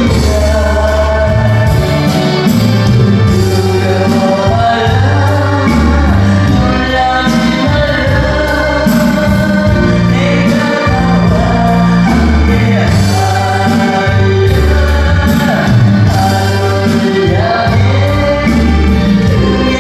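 A Christian worship song sung by a solo singer over an instrumental accompaniment with a steady bass line.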